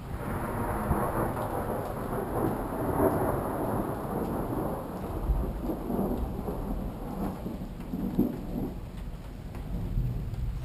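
Thunder rolling, starting suddenly and rumbling on for about nine seconds as it slowly fades, over falling rain.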